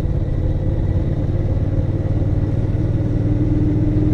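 Motorcycle engine running steadily while riding, heard from a helmet-mounted camera, with rushing noise over the engine.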